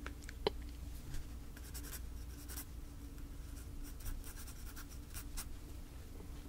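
Pen writing on paper: soft, scattered scratching strokes, with one light tap about half a second in.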